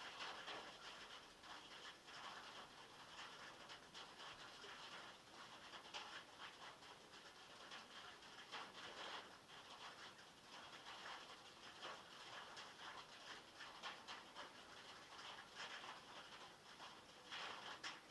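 Rain drumming on a metal roof, heard from inside a log shed: a dense, even patter that swells briefly several times.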